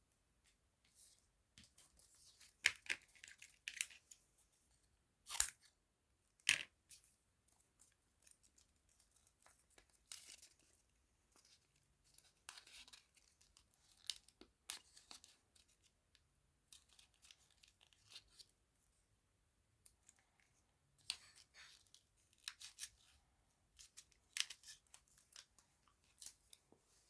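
Irregular, crisp tearing and crackling noises in short bursts, with a few sharper snaps among them.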